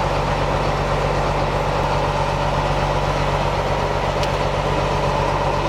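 Boat engine idling: a steady low hum with a fast, even pulse.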